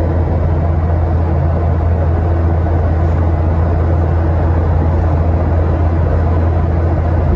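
Steady low drone of a Boeing 737-800's jet engines and rushing air, heard inside the cabin.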